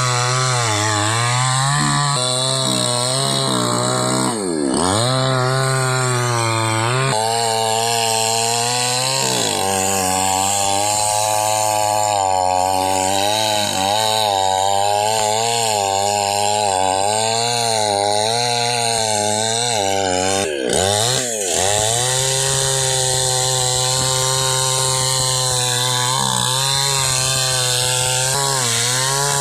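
Chainsaw running at high revs while cutting into a palm trunk, its pitch sagging and recovering as the chain takes load. The revs drop sharply twice, about four seconds in and again past the twenty-second mark, then pick up again.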